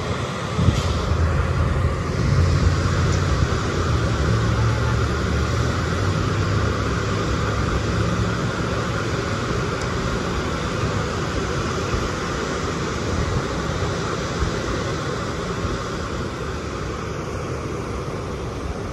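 Steady rumble of road traffic passing on a busy road, loudest in the first half and slowly easing.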